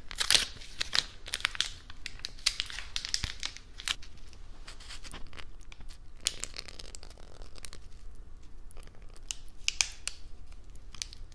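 A small lemon juice sachet being torn open and crinkled in the fingers close to the microphone, then squeezed out. There are sharp crackles, thickest in the first few seconds, then thinning out with a short flurry near the end.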